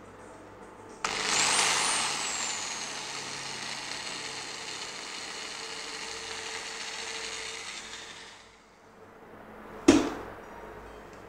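Cordless drill running for about seven seconds, its motor whine starting high and slowly falling before it stops. A single sharp knock follows a little later.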